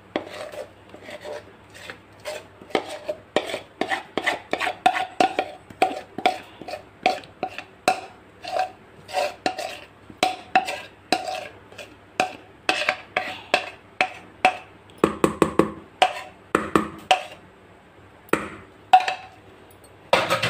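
Spatula scraping and knocking against the inside of a mixing bowl as thick rava cake batter is scraped out into a cake tin: a quick run of scrapes and taps, two or three a second, some with a short ringing note.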